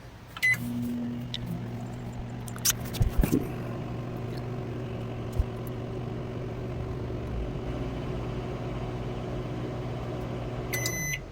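Microwave oven: a keypad beep, then the oven running with a steady hum, a few clicks about three seconds in. Near the end the hum stops and the end-of-cycle beeps begin; no arcing is heard from the aluminium foil inside.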